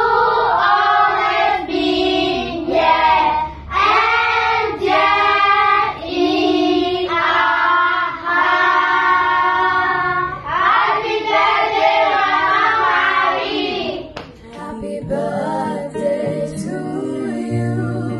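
A group of children singing together in long held notes. About fourteen seconds in, it cuts to an acoustic guitar playing under female voices singing.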